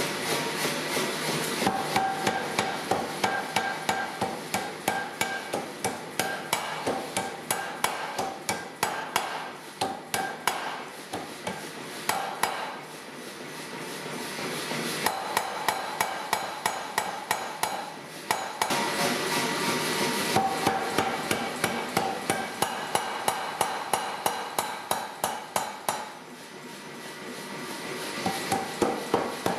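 Rapid, regular hammer blows on a hot steel bar at the anvil, about three to four a second, drawing the square bar out into flatter stock, with a ringing note. The blows pause twice, then resume, over a steady rushing background noise.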